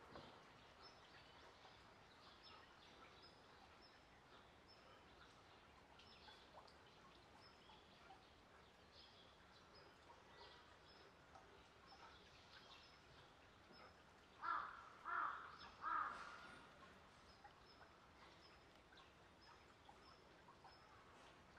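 A crow cawing three times in quick succession, about two-thirds of the way through, over quiet outdoor ambience with faint small-bird chirps.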